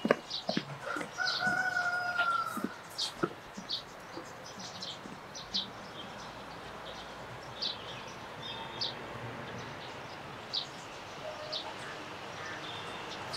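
A rooster crowing once, a held call of about a second and a half a little after the start, with small birds chirping in short high calls throughout.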